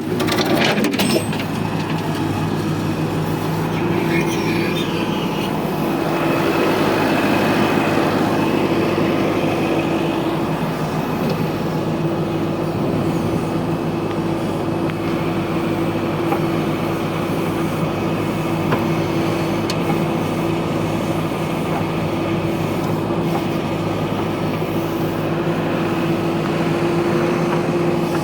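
Diesel engine of a Tata TH86 backhoe loader running steadily under work, a continuous drone with a few clanks near the start.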